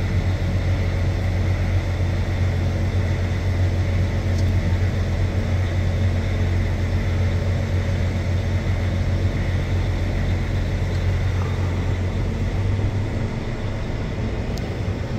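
Articulated dump truck's diesel engine running steadily as the truck is driven in reverse, heard from inside the cab. It eases off slightly near the end.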